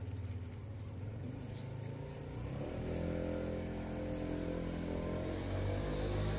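A motor vehicle's engine hum grows louder from about two and a half seconds in, its pitch rising slightly as it draws near.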